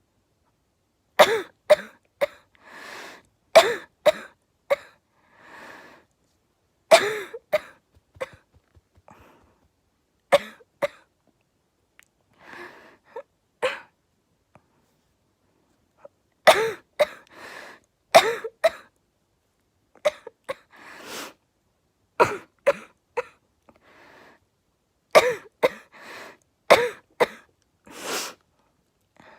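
A girl coughing in repeated fits of two to four sharp coughs, with audible breaths drawn in between the fits.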